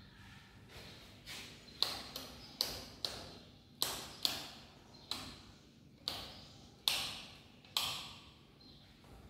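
Footsteps on a hard stone or tiled floor in an empty room: sharp, irregular slaps about half a second to a second apart, each trailing a short echo.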